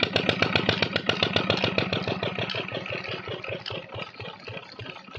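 Single-cylinder Petter-type stationary engine running with a fast, even firing beat, driving a flat belt. From about two seconds in the beat grows weaker and the engine fades.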